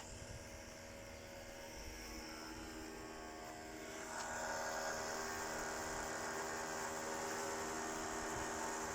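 Shielded metal arc (stick) welding with a 7018 rod. The welding machine hums steadily, and about four seconds in a louder, steady crackling hiss from the arc takes over.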